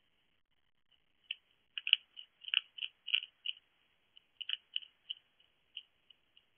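A hedgehog crunching dry pellet food from a dish, a run of irregular sharp crunches and clicks, several a second, that starts about a second in and thins out near the end.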